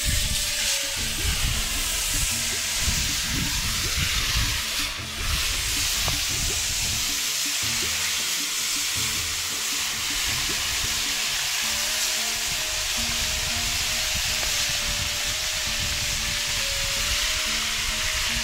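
Whole fish deep-frying in hot oil in a large metal cauldron: a loud, steady sizzle that starts suddenly as the fish go into the oil.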